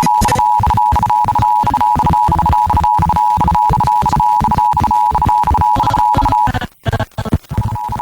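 Emergency Alert System attention signal: the steady two-tone alert (853 Hz and 960 Hz together) sounding over music with a steady beat. It cuts out briefly about six and a half seconds in, then resumes.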